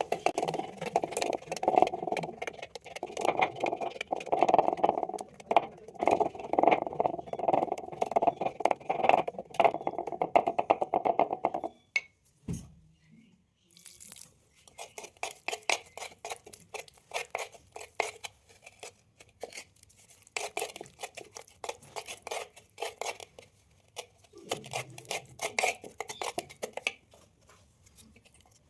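Red clay being broken and crumbled: dense crunching and crackling for about twelve seconds, then, after a short pause, sparser clusters of crisp clicks and crunches.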